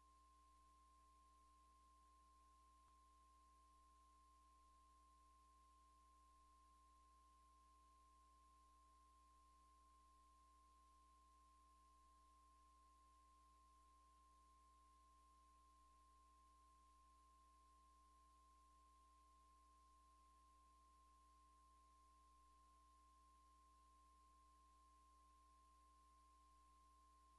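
Near silence, with only a very faint steady hum and a thin steady tone.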